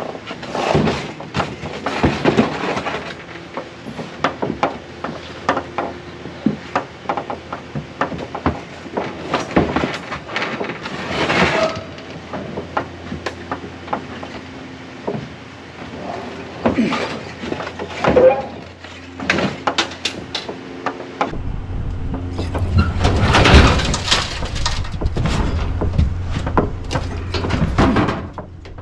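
Sheet-metal clothes dryer cabinet being shoved and tipped into a pickup truck bed: repeated clunks and knocks with scraping of metal, the scraping loudest a few seconds before the end.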